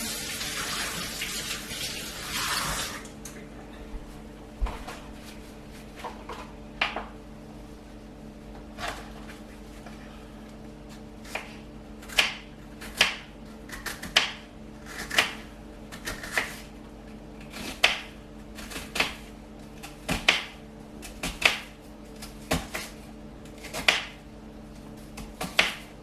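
Water runs from a tap for the first few seconds. Then a knife chops half an onion on a cutting board: a few scattered taps at first, then steady chopping about once a second. A low steady hum continues underneath.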